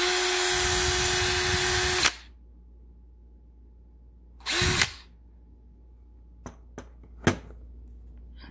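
Stanley 18V brushless cordless hammer drill running free with no load: a steady whine for about two seconds, then a second short trigger pull a few seconds later that winds down as it is released. A few sharp plastic clicks and a knock follow as the drill is handled and set down into its case.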